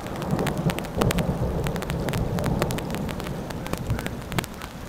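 Rain falling during a thunderstorm, with many separate drop impacts close to the microphone. A low rolling rumble of thunder swells about a second in and fades toward the end.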